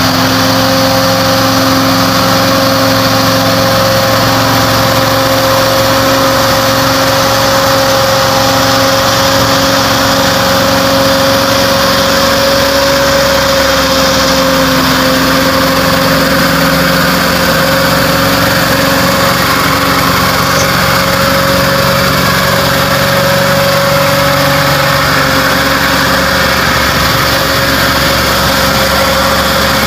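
Engine of a Ford Canadian Military Pattern log truck running steadily under load as it climbs a dirt track, its note unchanging, with a steady high tone over it.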